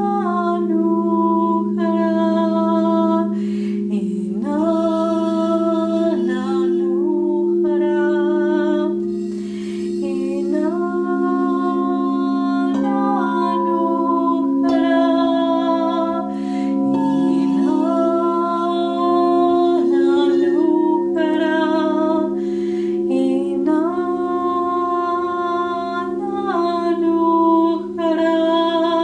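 Crystal singing bowls ringing in steady, sustained tones while a woman sings long held vocal tones over them, her voice sliding from one held note to the next.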